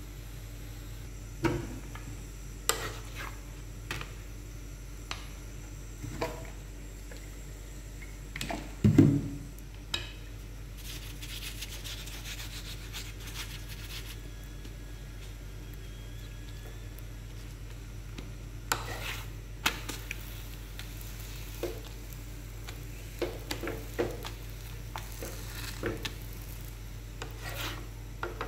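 Chapati cooking on a flat griddle (tawa): scattered light taps and scrapes as a wooden spatula presses and turns the bread on the pan, with one louder knock about nine seconds in. A steady low hum runs underneath.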